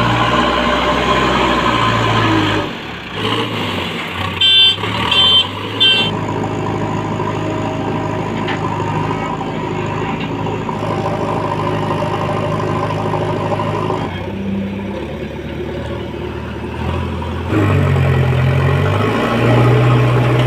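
JCB 3DX backhoe loader's diesel engine running as the machine works, its pitch shifting and the revs rising near the end. A few short high beeps from its reversing alarm come about five seconds in.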